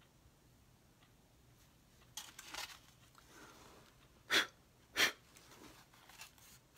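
Breath sounds close to the microphone: a few soft breaths, then two short, sharp puffs of air about half a second apart.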